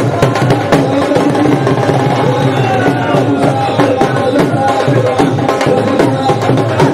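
Dhol drum beaten in a steady, fast dancing rhythm.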